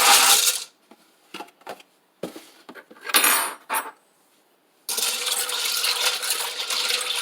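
Dry macaroni noodles poured from the box into a pot, a dense pattering rattle that stops about half a second in. A few knocks and clinks and a short rustle follow, then the rattling pour starts again about 5 seconds in.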